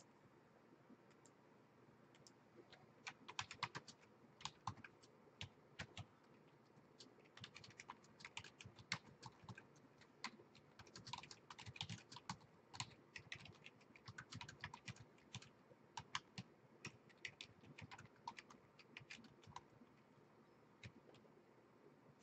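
Typing on a computer keyboard: irregular runs of quick key clicks that start about three seconds in and trail off near the end.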